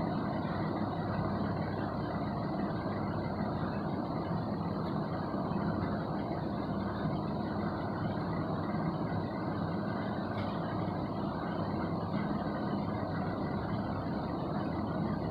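Steady low hum and rumble that runs on without change.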